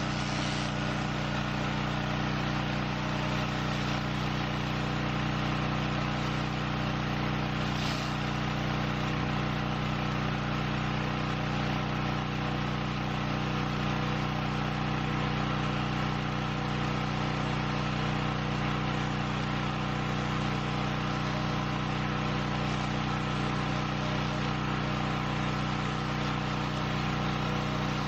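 Pressure washer's small engine running steadily at a constant speed, with a hiss of spray over it.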